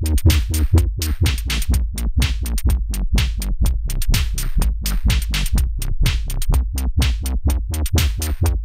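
Electronic drum-machine beat from a Dave Smith Tempest with a heavy synth bass line. The mix runs through a Mutant Hot Glue compressor sidechained to the kick drum, so it pumps in time with the kick.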